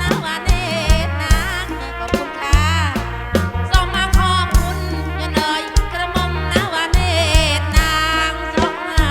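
Live kantrum, Northern Khmer folk dance music from a band played through a loud sound system: a wavering melody with vibrato over a heavy bass line and a steady, punchy drum beat.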